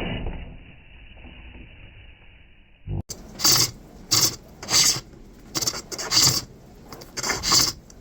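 Turning tool cutting a wooden bowl on a foot-powered pole lathe, starting about three seconds in: a run of separate rasping scrapes, about one and a half a second, each stroke a cut as the treadle drives the work round.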